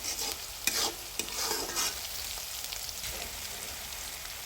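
Spatula scraping and stirring onions and spices frying in oil in a karahi, with a steady faint sizzle. There are several scrapes in the first two seconds. The turmeric is being fried until its raw smell is gone.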